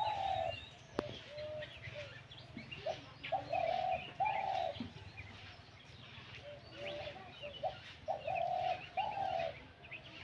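Caged decoy dove cooing from high in a tree: three phrases of short, low coo notes a few seconds apart, with small birds chirping in the background.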